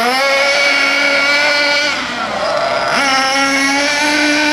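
Nitro engine of a 1/8-scale FTX Outrage RC buggy buzzing at light part throttle while being run in on its third tank. The pitch holds for about two seconds, drops briefly as the throttle eases, then rises and holds again.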